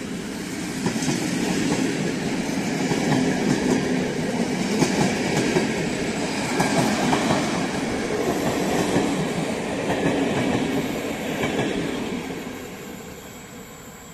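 Passenger coaches rolling past at speed, their wheels clattering over the rail joints with a steady rush of wheel and track noise. About twelve seconds in, as the last coach goes by, the sound fades away.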